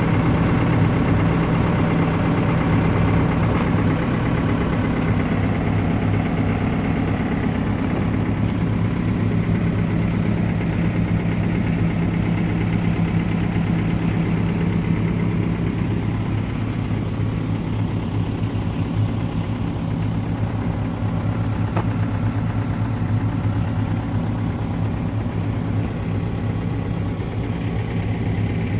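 Diesel engine of a Cat 430D loader backhoe idling steadily.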